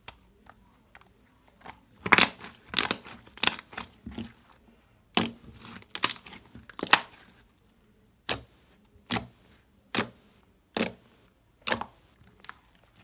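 Hands squishing and poking a glossy, jiggly slime, giving sharp wet clicks and pops. The pops come in a quick cluster starting about two seconds in, then settle to roughly one a second.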